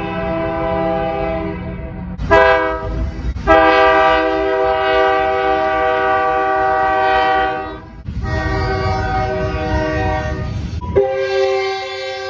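Train horns sounding in a string of blasts: a short blast about two seconds in, then long held blasts, the horn chord changing abruptly about eight and eleven seconds in, over a low rumble.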